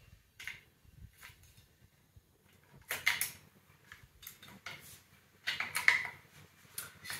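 Metal clicks and light knocks of a TR3 rifle being stripped as the dust cover and recoil spring assembly are worked out of the receiver. There is a short run of clicks about three seconds in and a louder group shortly before the end.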